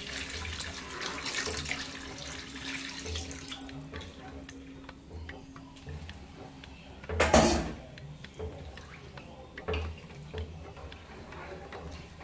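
Running or poured water, a steady hiss that fades out after about four seconds. A single loud knock comes about seven seconds in, followed by a few lighter knocks and clicks.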